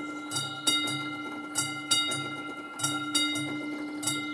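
Classic mechanical warning bell of an AŽD 71 level-crossing signal ringing while the crossing warning is active, its striker hitting in pairs of strokes about a third of a second apart, a pair roughly every 1.2 seconds, the bell ringing on between strokes.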